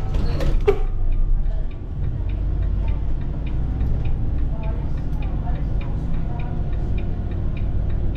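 Volvo B8RLE single-deck bus's diesel engine running as the bus pulls away, heard from the driver's seat, with the turn indicator ticking about twice a second. A brief sharp burst of noise comes about half a second in.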